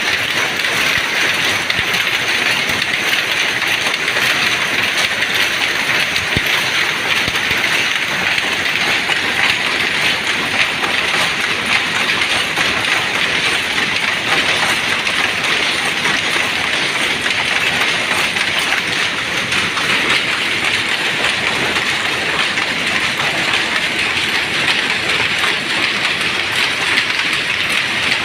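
Dobby power looms weaving terry towels, running with a steady, rapid mechanical clatter that never pauses.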